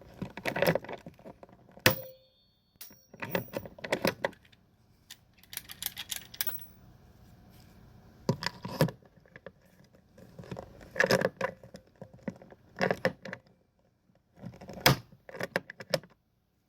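Metal hardware and a hand tool clicking and rattling in short bursts as the tie-down screws are driven in. About two seconds in, a sharp metallic clink rings briefly.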